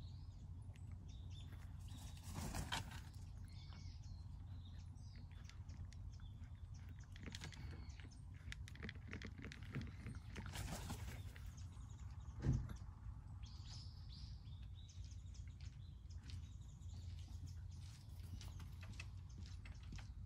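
Cat crunching dry kibble from a plate in short clicks, with small birds chirping over a steady low rumble. A single sharp thump comes about twelve seconds in.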